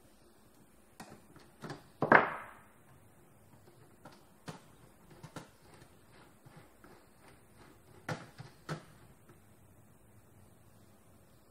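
Scattered clicks and knocks of hands handling a copier fuser unit and tools on a worktable. The loudest is a sharp clank with a brief ring about two seconds in. Two more clear knocks come near the end.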